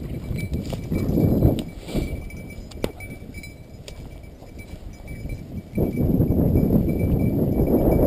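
Wind buffeting the microphone, with the wearer's footsteps swishing through dry grass and brush. The rumble comes in uneven surges at first, then a strong gust hits suddenly about six seconds in and holds.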